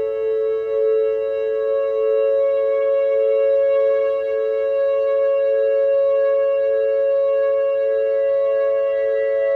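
Background music: a steady drone of held tones with no beat.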